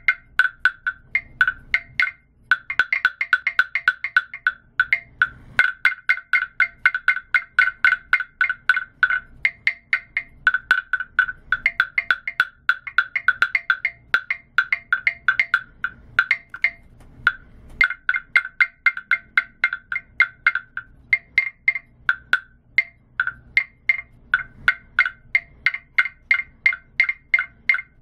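Vietnamese carved wooden bird noisemaker worked by hand on its bamboo sticks. Its hollow, slotted wooden balls knock in fast rattling runs of hollow, pitched clacks in two tones, broken by short pauses.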